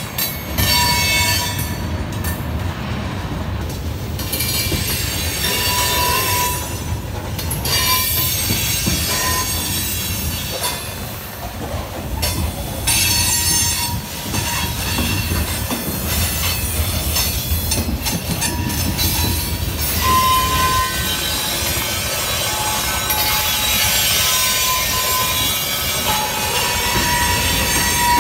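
CSX manifest freight cars rolling past at close range, steel wheels squealing in short high tones on and off as the train takes the curve, over a steady rumble and clatter on the rails.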